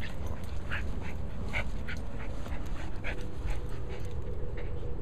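Small cairn terrier making short high-pitched whimpering sounds while playing with a ball, repeating every half second or so and thinning out near the end.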